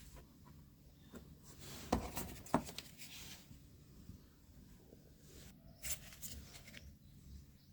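Cardboard and craft tools being handled at a work surface: intermittent rustling and scraping, with two sharp knocks about two seconds in and another scrape near six seconds.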